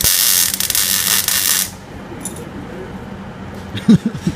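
Arc welding on an exhaust muffler: the arc crackles and hisses loudly for about a second and a half, then cuts off. A brief loud knock comes near the end.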